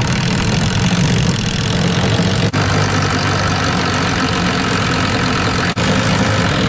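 Power drill with a one-inch bit running hard, cutting through the aluminum hull of a jon boat: a steady motor drone under a loud metal-cutting grind, with two momentary dips, about two and a half seconds in and near the end.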